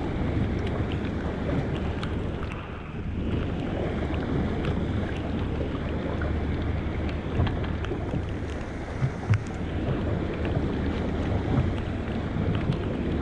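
Wind buffeting the microphone over steady rain, with scattered light ticks of raindrops striking the camera.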